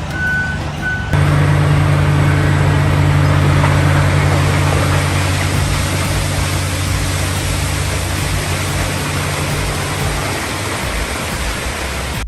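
A vehicle reversing alarm beeping about twice a second, then a sudden change to a heavy diesel engine running steadily with a deep hum, which eases off near the end.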